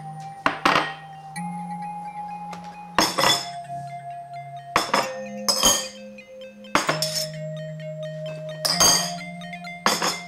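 Several sharp, ringing clinks of ceramic bowls and metal spoons set down on a glass tabletop, one every second or two, over background music with long held notes that step in pitch.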